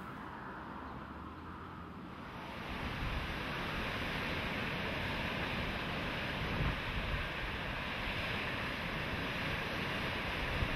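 Steady rushing of wind and ocean surf, strongest in the middle and upper range. It grows louder about two and a half seconds in and then holds steady.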